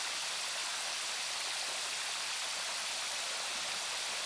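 Steady hiss of water jetting from the open end of a fire hose and spraying back down.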